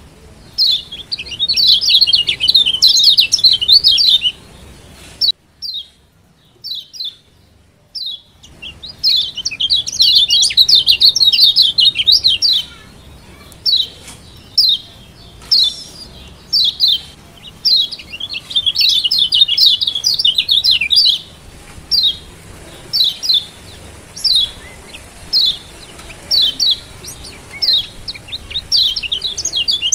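Lombok yellow white-eye (kecial kuning, a Zosterops) giving sharp, high 'ciak' chirps about once a second, broken by several runs of fast twittering a few seconds long. These are the 'ciak' calls used to stir a quiet white-eye into singing.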